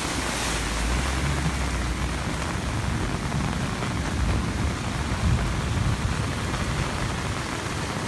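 Heavy rain falling steadily on a flooded street, with a car driving past close by through the standing water, its engine and tyres rumbling low and water splashing.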